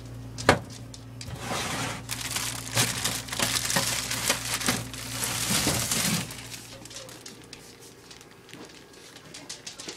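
A plastic bag of carrots crinkling and rustling as it is grabbed and handled, for about four seconds, after a single sharp knock about half a second in.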